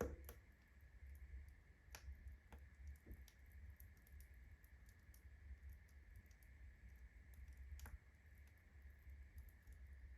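Wood fire of whole birch logs in a fireplace, crackling as the bark burns during lighting: faint, irregular sharp pops, the loudest right at the start and others about two and eight seconds in, over a low steady rumble.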